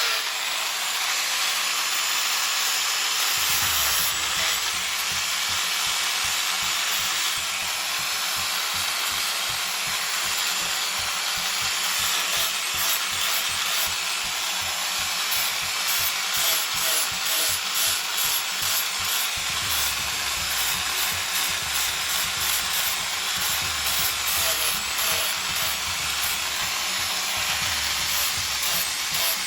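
Power sander working on the wood of a large tree root: a steady abrasive noise.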